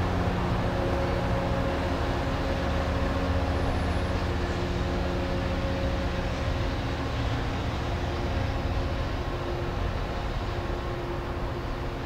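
Diesel passenger train pulling away along the track: a steady engine drone with a low rumble of the train, slowly fading as it recedes.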